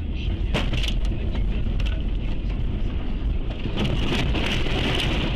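Car on the road: steady low engine and road rumble with a hiss over it, and a few sharp knocks about half a second to a second in.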